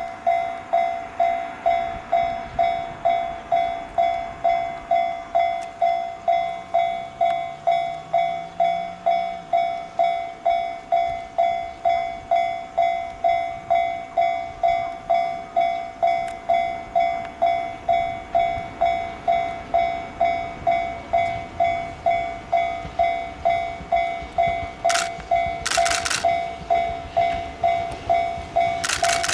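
Railway level-crossing warning bell ringing: a high electronic ding repeating evenly, a little under two a second. An electric train's approach is faint beneath it, with a few short hissing bursts near the end as the train draws close.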